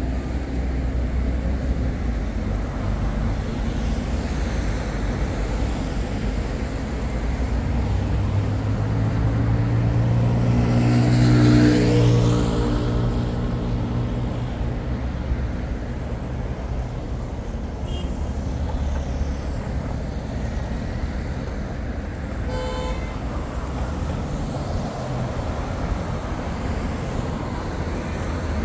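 Steady city road traffic. One vehicle with a low engine drone passes close, growing louder to a peak about twelve seconds in and then fading, and a short horn beep sounds about two-thirds of the way through.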